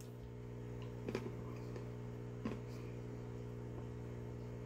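Steady low electrical hum in a quiet room, with two faint short mouth sounds of chewing a small piece of chocolate, about one and two and a half seconds in.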